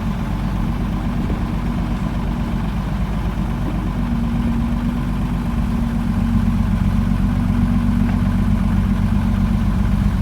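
A heavy vehicle engine idling steadily, a low hum that grows a little louder about six seconds in.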